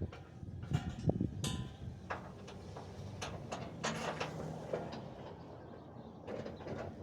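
Engine running low and steady, with intermittent sharp metallic clanks and rattles.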